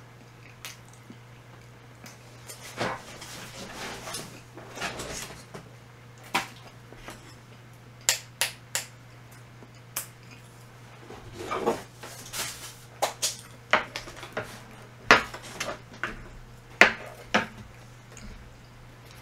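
Eating utensils clinking and tapping against dishes and food containers: a scattered, irregular series of short clicks and clinks, sharper and more frequent in the second half.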